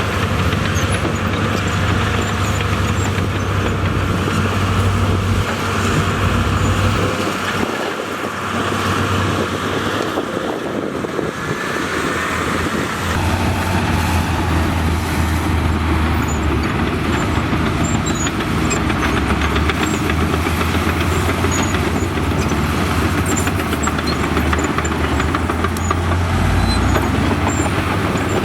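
Diesel engine of heavy earthmoving machinery running under load, a low steady rumble that eases for a few seconds a third of the way in and then picks up again.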